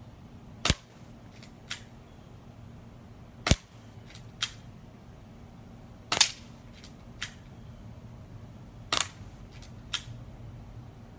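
Airsoft gun shooting BBs at an orange: four sharp snaps about three seconds apart, each followed by one or two fainter clicks.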